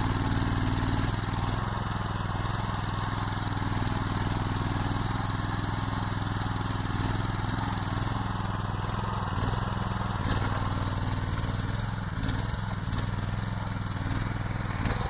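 Engine of a homemade hydraulic skid steer loader running steadily, with a few faint clicks.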